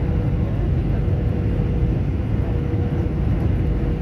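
Steady low cabin noise of an airliner in flight, engine and airflow noise heard from inside the cabin, with a thin steady tone above it.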